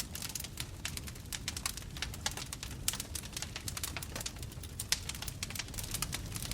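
Bonfire crackling, with many irregular sharp pops and snaps over a steady low rumble of the flames.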